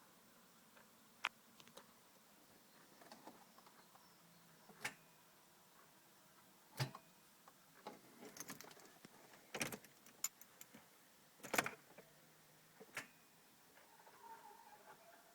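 About six sharp clicks and knocks, a couple of seconds apart, from the ignition key being worked in a Mercedes 190D diesel, with no cranking or engine sound: the starter fails to turn over.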